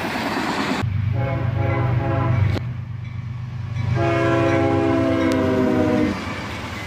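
Air horn of the lead locomotive, a GE ET44AH, sounding two long chord blasts of about two seconds each, the second starting about a second and a half after the first ends, over the steady low rumble of the passing train's diesel locomotives.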